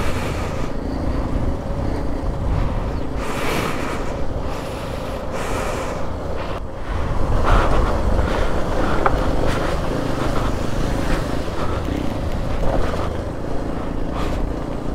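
Motorcycle engine running under way, heard from the rider's seat, with wind noise on the microphone; it gets louder about seven seconds in.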